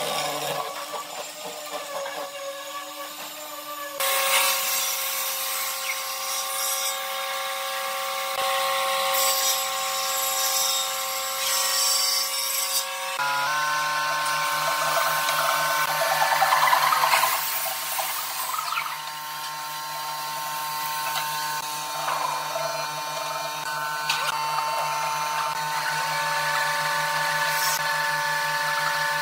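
Electric power tool running, a steady motor whine that changes pitch abruptly about four seconds in and again about thirteen seconds in.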